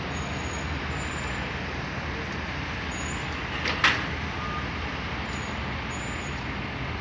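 Steady rumble of motor traffic, with one short, sharp hiss about four seconds in.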